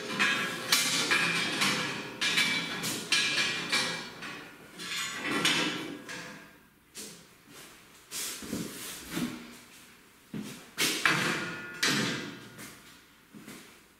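Stainless steel equipment and plastic molds knocking and clanking as they are handled and set in place, a series of sharp knocks with short ringing tails and a quieter lull in the middle.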